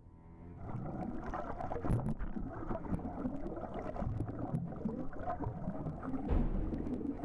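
Underwater audio from a camera held below the surface while snorkeling: a muffled rushing of moving water with scattered sharp clicks and crackles, swelling up within the first second.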